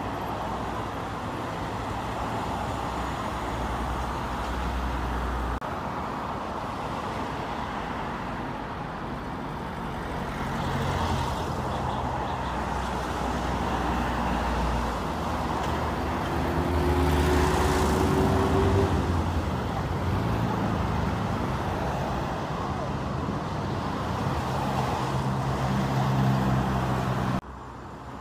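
Road traffic: cars and other motor vehicles driving past, a steady run of engine and tyre noise. The loudest vehicle passes about two-thirds of the way through, its engine tone rising slightly. The sound drops off suddenly just before the end.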